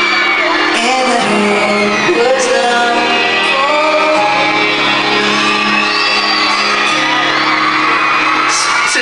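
Live pop ballad played on an arena sound system: piano and violin under a male lead vocal, echoing in the large hall, with fans shouting and screaming over it.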